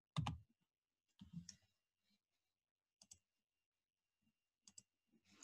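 Near silence broken by a few short, faint clicks, the loudest just after the start and three smaller ones spaced a second or two apart.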